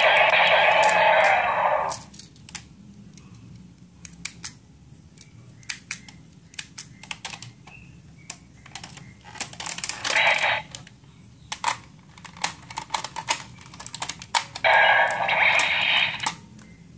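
Bandai DX Giga Gaburevolver toy gun being handled: repeated sharp plastic clicks as its parts are worked, with loud, thin-sounding electronic sound effects from the toy's small speaker at the start, briefly about ten seconds in, and again near the end.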